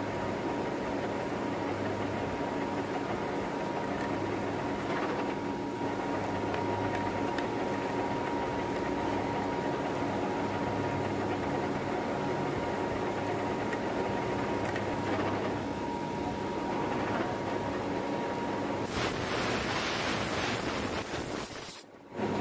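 Metal lathe running steadily with a steady hum and whine while a tap clamped as a single-point tool cuts an M20x2.5 thread in a metal bar. About nineteen seconds in, a louder hiss comes in and cuts off abruptly near the end.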